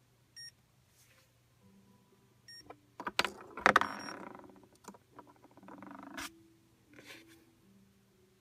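Electronic chess computer's piezo beeper giving two short beeps, one just under half a second in and one about two and a half seconds in. This is followed by clicks and knocks of plastic chess pieces being picked up and pressed down on the sensor board, loudest around three to four seconds in, with lighter handling sounds after.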